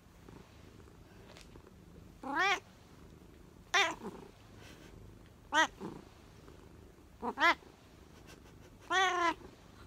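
Black-and-white domestic cat meowing repeatedly: about six short meows, one every second or two.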